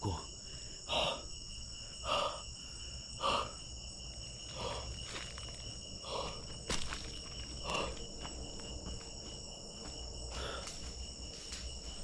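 Night insects, crickets, trilling in several steady high-pitched tones, with footsteps crunching on dry leaf litter every second or so.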